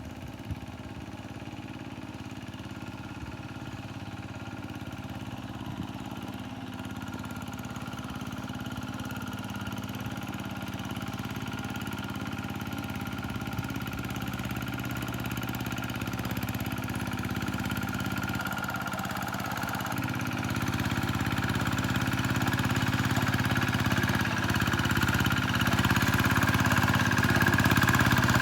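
Tractor engine running steadily under throttle. It grows gradually louder, and its pitch edges up in the last several seconds.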